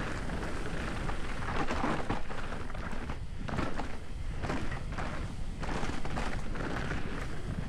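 Wind buffeting the microphone over the low rumble and rattle of a mountain bike rolling over a rough trail, rising and falling unevenly.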